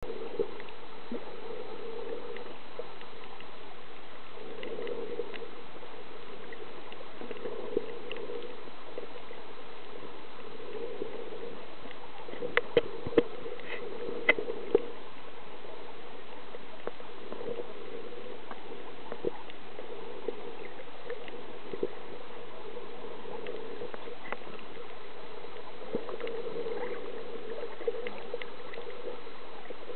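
Underwater ambience: a steady, muffled hiss with a soft gurgling swell every few seconds, and a brief cluster of sharp clicks about halfway through.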